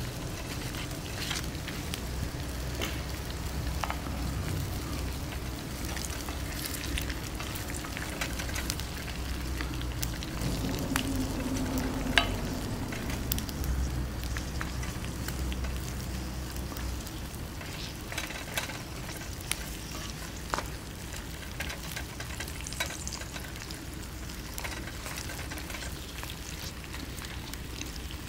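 Oil sizzling in a pan, a steady hiss with scattered sharp ticks and pops and one louder click about twelve seconds in.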